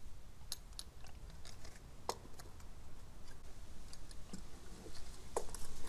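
A few sharp plastic clicks and light rattles as an ignition coil and its wiring connectors are handled and fitted onto the engine.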